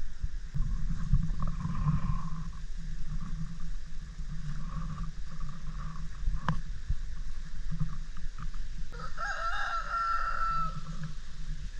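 A rooster crows once about nine seconds in, a single call lasting a couple of seconds, with fainter chicken clucks earlier. A steady low rumble runs underneath, and there is one sharp click about six and a half seconds in.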